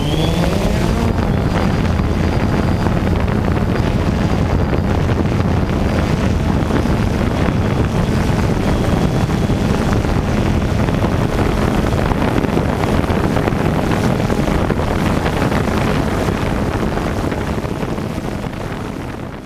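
Quadcopter's motors and propellers running loudly and steadily in flight, with wind rushing over the onboard microphone. Right at the start the motor pitch finishes rising as the drone lifts off, and near the end the sound fades down.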